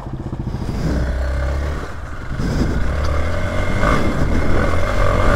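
Hero Xpulse 200 4V's single-cylinder engine running as the motorcycle rides off-road, getting louder about two and a half seconds in.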